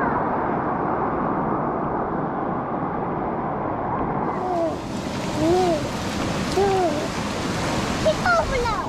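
Steady rush of flowing water from a stream or river. In the second half come three short calls about a second apart, each rising and falling in pitch, then a few quick chirps near the end.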